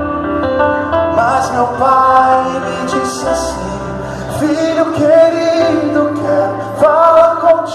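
Christian worship song: a singer holding and sliding between notes over sustained instrumental chords.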